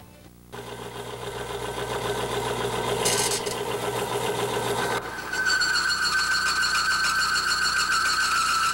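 Timken extreme pressure test machine running with a steel test bearing pressed against its rotating, oil-bathed race: a machine grinding that grows steadily louder as the load goes on, then a steady high-pitched metal-on-metal squeal from about five seconds in. The lubricant, new oil with an additive, is failing under the pressure, and the bearing seized at about 55 pounds of force.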